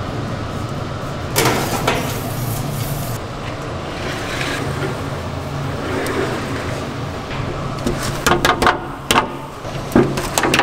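Wooden bagel board working in a wood-fired oven over a steady low hum: a rushing scrape about a second and a half in, then a run of sharp knocks and clatter near the end as the board is knocked against the oven and the bagels drop onto the deck.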